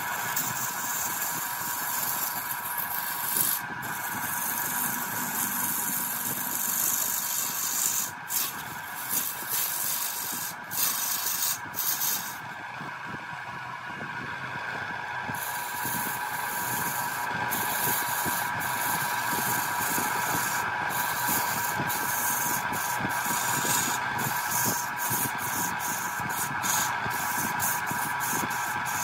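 Wood lathe running with a steady whine while a turning tool cuts into a large spinning wooden cylinder, peeling off chips with a rough, scraping hiss. The cutting stops briefly several times, with a longer break of about three seconds near the middle, leaving the lathe's hum.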